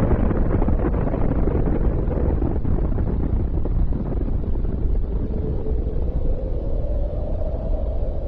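Long, steady rumble following a large explosion, with a faint drone underneath, easing off slightly towards the end.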